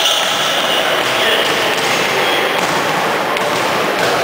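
Basketballs bouncing and thudding on an indoor court, with voices echoing in a large hall. A high steady squeal runs through the first second or so.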